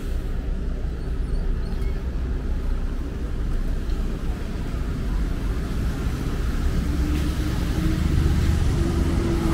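Road traffic on wet pavement: a steady rumble of passing vehicles with tyre hiss. It grows louder toward the end as a low engine hum comes in over the last couple of seconds.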